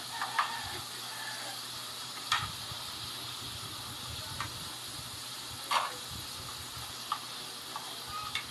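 Potato fries frying in hot oil, a steady sizzle, with a few sharp clicks over it, the loudest about two and six seconds in.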